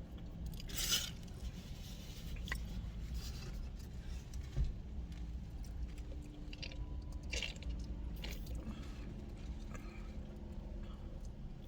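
A person chewing and eating food close to the microphone, with short crunches and mouth sounds scattered through, over a steady low rumble.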